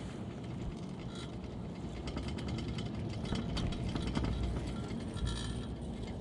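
Chairlift clattering and rumbling as the chair's grip rolls through the sheave wheels of a lift tower overhead, loudest a few seconds in, over a steady low rumble of the moving haul rope.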